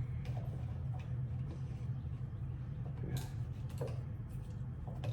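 3D-printed magnetic fidget sliders being handled: a few scattered light clicks and taps, over a steady low hum.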